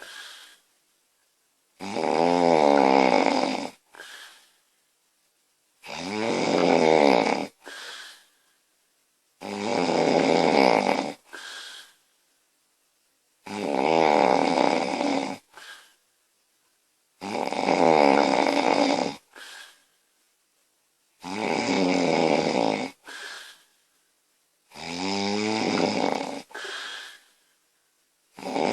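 A sleeping woman snoring loudly, a rattling snore about every four seconds, seven in all, each followed by a short, quieter breath.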